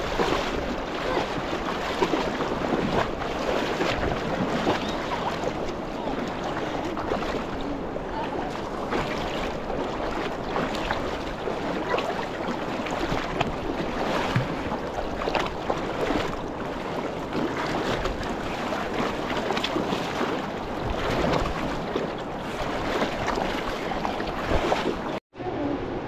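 Rushing mountain river water, a steady loud wash with constant splashing. It drops out for an instant near the end.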